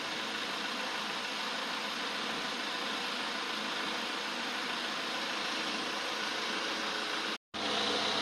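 Jaguar XE 20d's 2.0-litre four-cylinder diesel engine idling steadily, with a brief break near the end.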